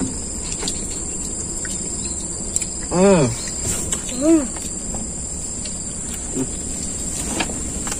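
Insects buzzing in a steady high-pitched drone. Two short vocal sounds from a person come about three and four seconds in.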